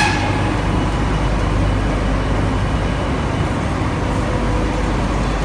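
Steady low machinery rumble from an automatic paint line, its booth and conveyor plant running continuously.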